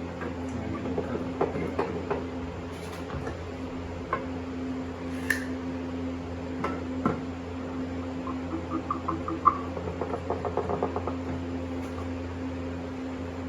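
Light metal clinks and knocks from steel tool pieces being handled on a workbench, with a run of quick ticking about two-thirds of the way through, over a steady electrical hum.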